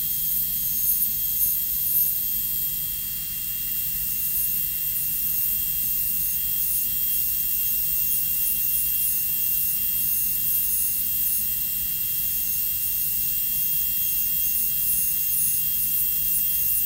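High-speed dental air-turbine handpiece running steadily with a high-pitched whine over a hiss of air, its bur cutting into a molar's cavity preparation.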